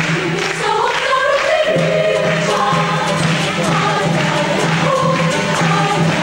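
Children's choir singing a lively song with accompaniment, the children's voices loud and many together. A low pulsing accompaniment line under the voices drops out about half a second in and comes back before two seconds.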